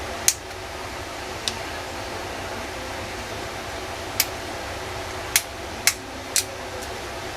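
A Samsung E1200Y feature phone being opened for repair: about six small, sharp clicks at irregular intervals over a steady fan hum.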